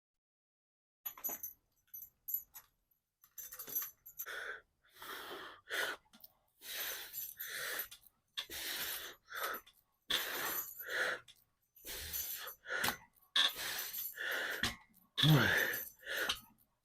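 A man breathing hard in quick, forceful breaths as he strains through a weight-training set. The breaths come faster and louder toward the end, where they turn into voiced groans. A few light clinks sound about a second in.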